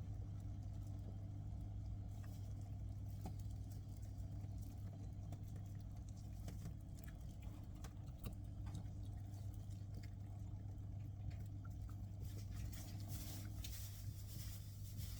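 A steady low hum, with faint, scattered small clicks and taps over it.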